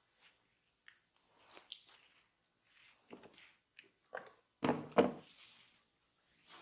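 Close-miked squishy, crackly rubbing on skin in short strokes, with two louder strokes about two-thirds of the way through.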